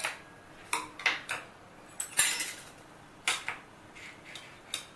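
A spoon clinking and tapping against stainless-steel bowls and small containers while paste and spices are scooped out and added: about a dozen short, irregular clinks, some with a brief metallic ring.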